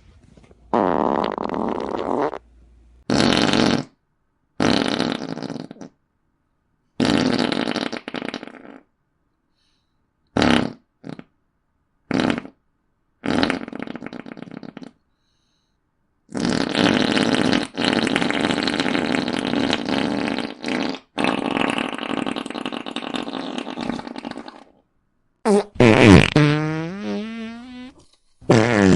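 A string of fart sound effects, about a dozen, separated by short silent gaps. Most are short blasts; one long drawn-out run lasts several seconds, and near the end one falls steadily in pitch.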